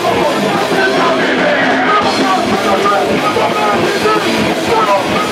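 Hardcore punk band playing live, with electric guitars, bass, drums and vocals into microphones.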